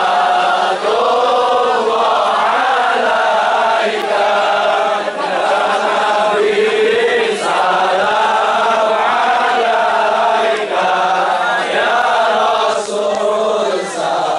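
Large crowd of men chanting together in unison, a continuous chant in repeated phrases.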